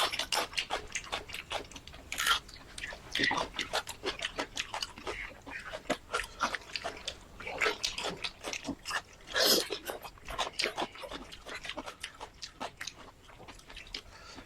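Close-up eating sounds: wet chewing and many quick lip-smacking clicks, with a couple of longer slurping or sucking noises about two seconds in and again near the middle.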